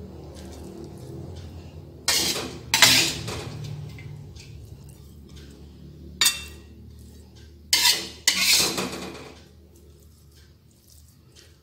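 Metal spatula scraping and clinking against a wok as stir-fried cassava leaves are scooped out onto a serving plate: about five separate strokes over a faint low hum.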